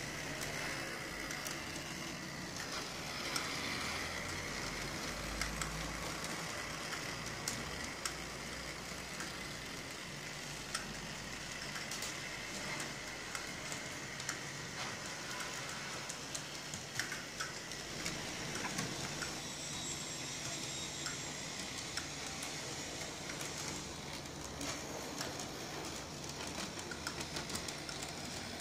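DCC-controlled model streetcars, including a Bachmann Peter Witt car, running on Rivarossi tramway track: a steady whirr from the small motors and gears, with many small irregular clicks from the wheels over rail joints and switches.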